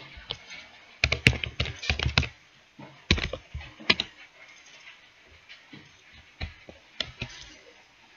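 Computer keyboard typing: two quick runs of keystrokes in the first four seconds, then a few fainter single clicks later on.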